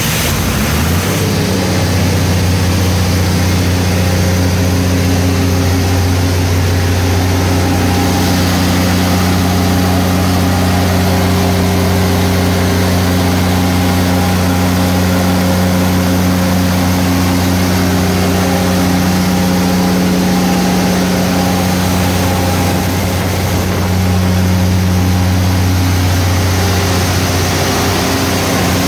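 Turbocharged Perkins diesel engine of a 145 kVA generator set running steadily just after start-up, a loud, even low hum.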